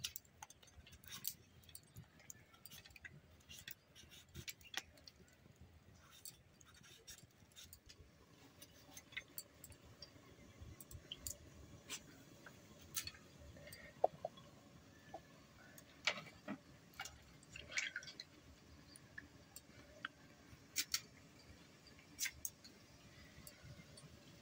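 Raw green papaya being sliced against the upright blade of a bonti, the Bengali floor-mounted cutting knife: irregular sharp, crisp cutting clicks, with a faint background between them.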